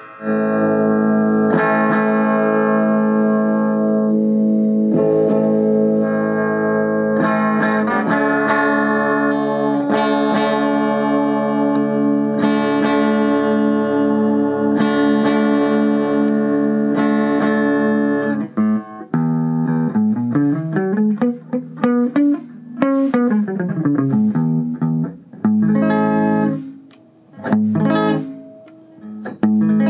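Yamaha Revstar RSP20X electric guitar being played: strummed chords left to ring for most of the time, then notes sliding up and down about two-thirds of the way through, followed by shorter chords with brief pauses between them.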